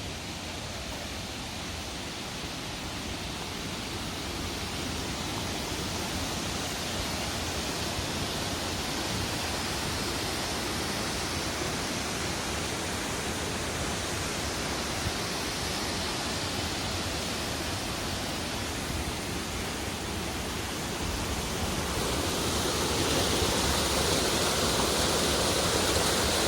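The steady rush of a tall waterfall, growing gradually louder and stepping up again near the end.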